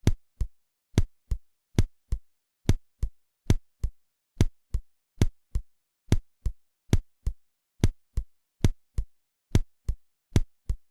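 Heart sounds on auscultation: a steady run of paired lub-dub beats, the first and second heart sounds, about seventy a minute. The rhythm sounds almost regular, though this is bigeminy with very late extrasystoles, an arrhythmia that is barely audible.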